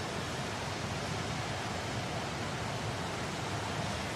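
Steady outdoor rushing noise, even throughout, with no distinct events.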